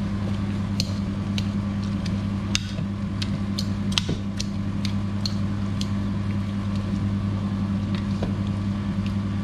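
A fork mashing avocado in a plastic bowl, with sharp irregular clicks of the fork against the bowl, most of them in the first half, over a steady low hum.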